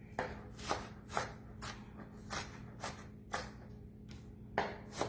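Knife dicing an onion: a run of sharp chops, about two a second and slightly uneven, as the blade strikes the board.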